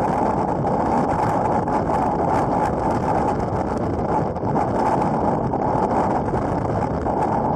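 Strong wind buffeting the microphone, a loud, steady rush, with choppy waves splashing against a kayak's hull.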